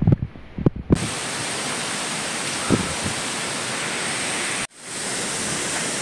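Steady, loud rush of the monsoon-swollen Madhe Ghat waterfall and its stream in spate. It cuts in abruptly about a second in, after a few low thumps, and breaks off for an instant a little past the middle.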